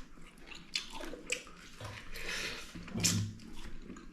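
Close-up chewing and wet mouth noises of a person eating chicken, with scattered short clicks and a louder stretch of chewing about three seconds in.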